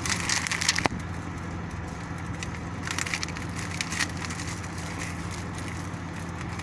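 Rustling and crinkling of a padded jacket and of paper documents being searched through close to the microphone, in a few short bursts, over a steady low hum.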